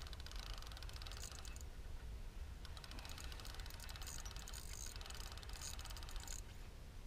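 Spinning reel being cranked to wind in fishing line, a rapid even ticking from its gears. It runs for about a second and a half, pauses, then goes on for about three and a half seconds more.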